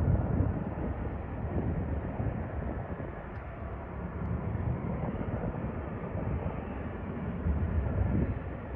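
Jet engines of a Southwest Airlines Boeing 737 rumbling as the airliner moves along the runway. The rumble is low and uneven and swells briefly near the end.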